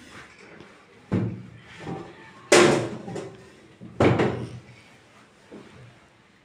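A series of sudden heavy thuds or bangs, three of them loud, about one, two and a half and four seconds in, the middle one the loudest, with a few fainter knocks between them.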